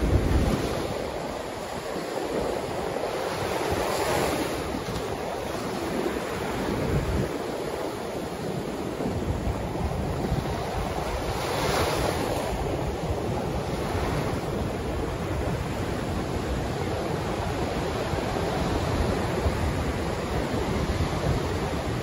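Ocean surf breaking and washing up the beach: a continuous hiss of foam that swells up about four seconds in and again about twelve seconds in.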